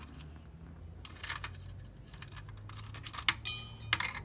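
Light clicking and scratching of plastic LEGO pieces as minifigures are moved and knocked together by hand, with a quick cluster of clicks near the end.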